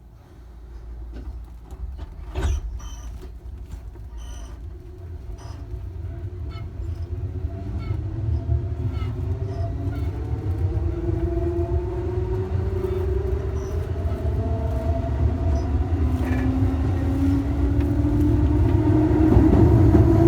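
Electric train pulling away and accelerating: the traction motors' whine rises steadily in pitch over a low rumble that grows louder, with a few sharp clicks and a knock in the first seconds.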